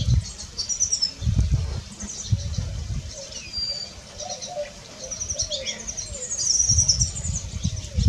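Small birds chirping and twittering all through. Faint low cooing of a white-winged dove comes a little after the middle. Low rumbling gusts of wind on the microphone come about a second in, at about two and a half seconds, and near the end.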